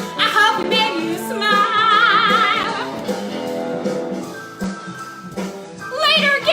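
A woman singing over recorded accompaniment, holding one long note with a wide vibrato about a second and a half in, with a regular beat underneath.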